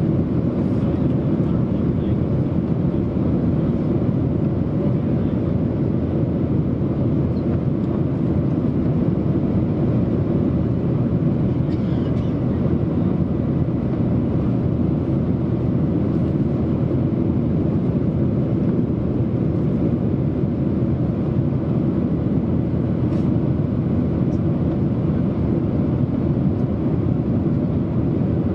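Steady roar inside the cabin of a Boeing 737-900ER climbing after take-off: its CFM56-7B turbofans and the rush of air over the fuselage, heard from a window seat behind the wing, deep and unchanging.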